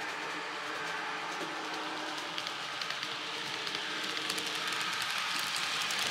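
Sound decoder in an N gauge Class 251 "Blue Pullman" model playing the diesel unit's running sound through the model's tiny onboard speaker, growing steadily louder as the train approaches. Rapid rail-joint clicking sets in about two seconds in.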